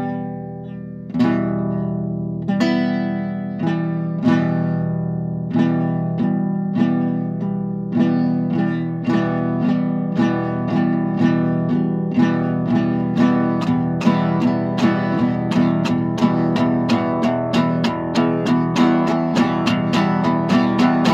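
Solo acoustic guitar, freestyle fingerpicking. The plucked notes come about a second apart at first, then quicken to two or three a second toward the end.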